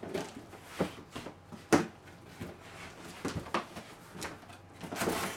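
Cardboard shipping box being opened by hand: flaps pulled up and folded back, with scattered knocks and rustles of cardboard. One sharper knock comes a little under two seconds in, and a longer rustle near the end.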